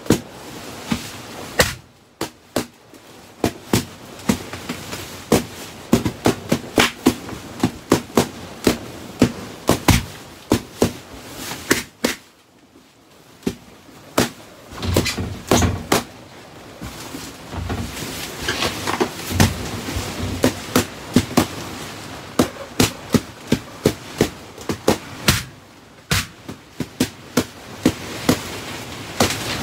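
Balloons popping one after another in quick succession, about two sharp pops a second with short lulls, and a rustling noise of balloons being handled between pops.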